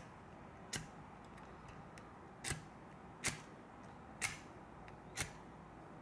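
A small ferro rod set into a plastic paracord survival buckle is struck five times with the buckle's steel scraper blade, throwing sparks. Each strike is a short, sharp scrape, about a second apart.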